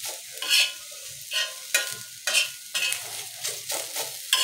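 Flat steel spatula scraping and stirring pumpkin leaves, garlic and green chillies across a tawa, about two strokes a second, over a light sizzle of mustard oil as the leaves sauté on low heat.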